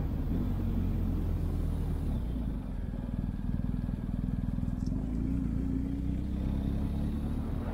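Motorcycle engine running while riding, with heavy low rumble and a brief dip in level and pitch change about two and a half seconds in.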